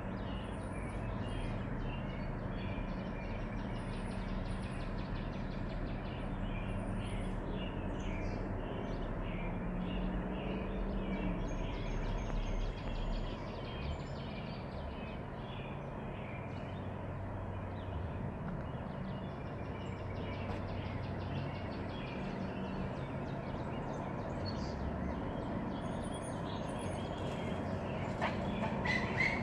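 Steady outdoor background with a low mechanical hum, and small birds chirping on and off high above it.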